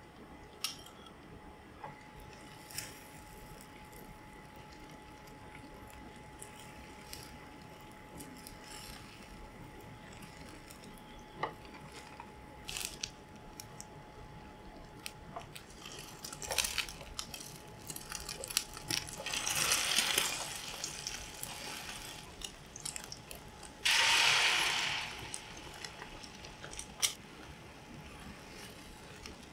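Egg omelette cooking in a square nonstick pan: light sizzling, with a plastic spatula tapping and scraping against the pan as the omelette is lifted and rolled. There are scattered small taps and two louder, longer scrapes past the middle.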